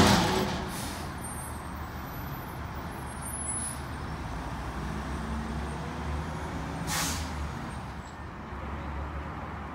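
Mack LEU garbage truck with an Amrep automated side loader letting out a sharp air-brake hiss, then its diesel engine running steadily as it pulls away. A second, shorter air hiss comes about seven seconds in.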